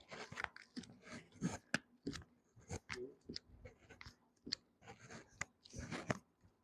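Hands pressing and rubbing on a patient's body and clothing during a chiropractic spinal adjustment: a quick, irregular run of short clicks and crackles with soft rustling in between.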